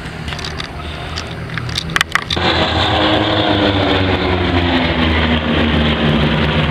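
Aircraft engine drone at an air show. About two seconds in there are a few sharp clicks, then the sound jumps louder into a passing engine whose pitch falls steadily as it goes by.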